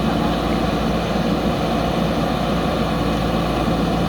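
Diesel engine of a JCB backhoe loader running steadily at a constant pace, a low even drone.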